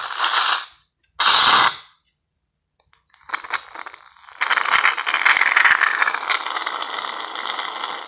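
Aerosol can of shaving cream spraying foam: two short hissing spurts, then a long crackling, sputtering spray from about three seconds in.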